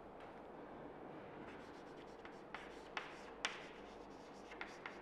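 Chalk writing on a chalkboard: faint scratching strokes with about five sharp taps of the chalk against the board in the second half, the loudest about three and a half seconds in.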